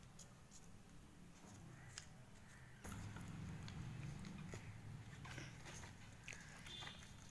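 Faint paper-handling sounds: sheets of craft paper being moved, pressed and picked up off a tiled floor, with small scattered clicks. A low background hum steps up with a sharp click about three seconds in.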